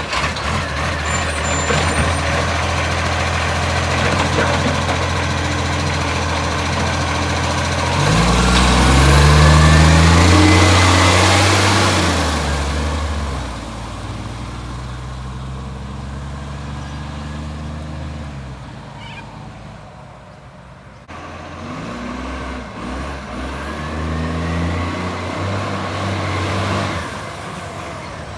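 Garbage truck's diesel engine with an exhaust leak, revving up about eight seconds in with a loud rush of noise, dropping back after about thirteen seconds, and revving again from about twenty-two seconds.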